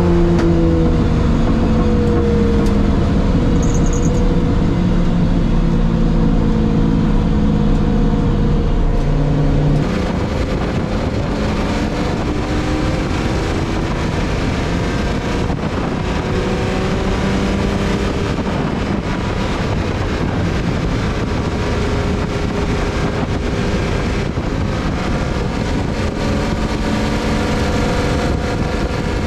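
The worked V12 engine of a Jaguar XJS race car running at speed on track. For the first ten seconds it is heard from inside the cabin as a strong, steady engine note. About ten seconds in, the sound turns slightly quieter and more hissy, with wind rush over the microphone and the engine note fainter and gently rising and falling.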